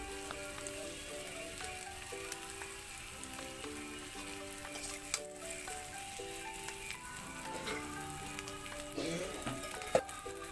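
Potatoes and ground spices sizzling as they fry in oil in a pan, with a few spatula stirs and a sharp click near the end. Background music plays a simple melody over it.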